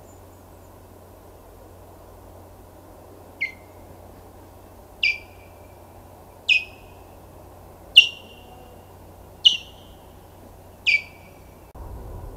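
An osprey gives six sharp, down-slurred alarm calls about a second and a half apart, the call that means another osprey is too close. A steady low hum runs underneath.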